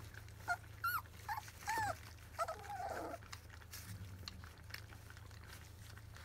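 Labrador Retriever puppies whimpering and squealing while they eat: about six short, high calls that bend in pitch in the first three seconds, one a little longer and falling. After that only faint small wet clicks of puppies lapping and smacking at the dish.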